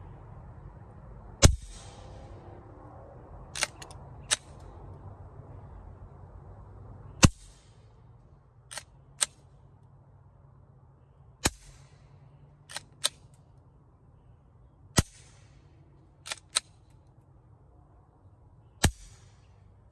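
Five suppressed pistol shots from a Glock 17 firing 147-grain subsonic ammunition through a Form 1 suppressor, single shots about three to four seconds apart. Between shots come pairs of sharp metallic clicks, the slide being worked by hand, because the pistol won't cycle with the direct-thread can.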